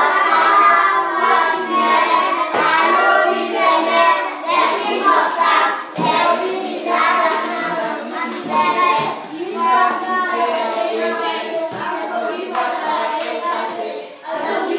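A group of young children singing together, with hand clapping scattered through the song.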